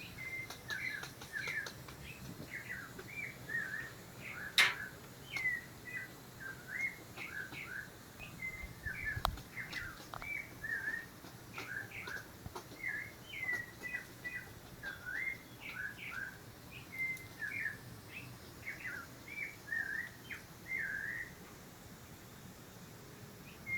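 Squirrels calling in quick repeated short chirps, two or three a second, a chatter the uploader hears as laughter. A single sharp click sounds just under five seconds in, and the calls die away a couple of seconds before the end.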